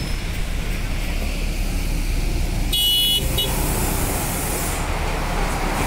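Steady low street-traffic rumble around a city bus, broken about halfway through by a short, high electronic beep from the bus, with a brief second blip just after it, then a hiss near the end.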